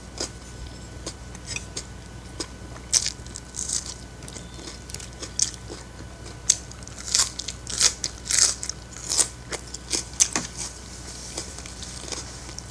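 A person chewing and biting raw napa cabbage leaf, a run of short crisp crunches that come thickest in the middle.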